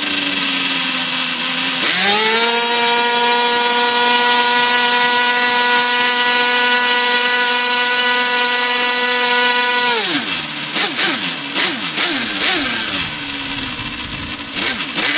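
Thunder Tiger GP42 two-stroke glow engine, ported and fitted with a tuned pipe and a 9x7 propeller, revs up quickly from a lower speed about two seconds in. It holds a steady high-pitched note at full throttle for about eight seconds. It then drops back and is blipped up and down at lower speed.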